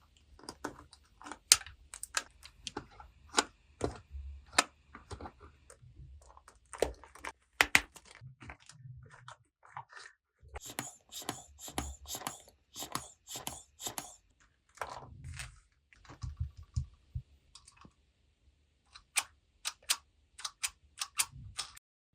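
Small plastic toys clicking and tapping as they are handled and set down, in irregular sharp knocks. About ten seconds in comes a few seconds of crinkly rustling among the taps.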